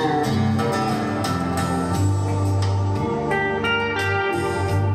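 Recorded guitar music with a sustained bass line, played from an Arcam FMJ CD17 CD player through an Audiolab 8200A integrated amplifier and AR 308 HO loudspeakers. Plucked guitar notes ring out over bass notes that change about two and three seconds in.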